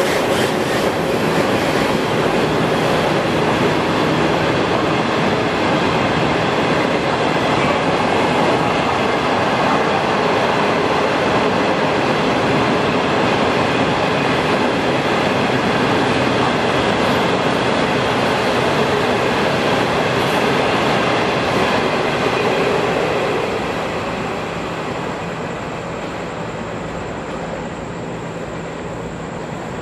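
Passenger train's 25T coaches rolling past on the rails, a steady loud rumble of wheels on track that fades away about three-quarters of the way through as the train moves off.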